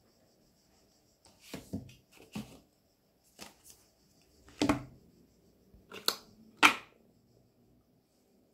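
Small cardboard retail boxes and their packaging handled and set down on a wooden table: a scatter of short taps, knocks and rustles, about eight in all, the loudest near the end.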